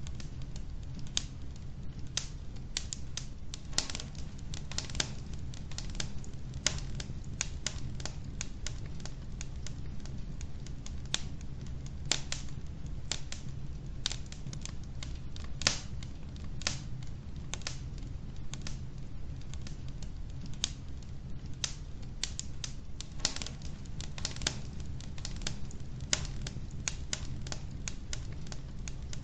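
Wood logs burning in a fireplace: irregular crackles and sharp pops, several a second, over a steady low background of the fire.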